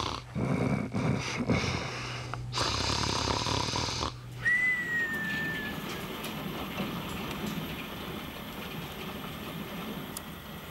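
A sleeping person snoring in a string of rough breaths over a low steady hum for about four seconds. After a sudden cut comes a short whistle-like tone, then a steady hiss.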